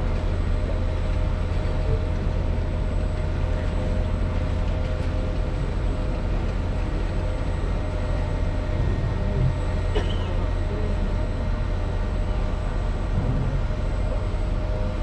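Steady low mechanical rumble with a constant hum from a cruise ship's engines and machinery, with a single brief click about ten seconds in.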